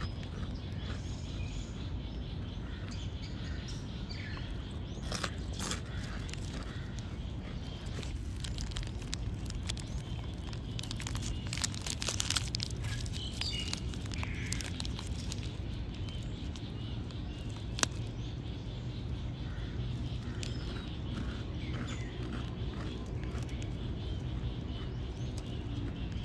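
Outdoor background ambience: a steady low rumble with scattered short bird chirps and a few isolated clicks.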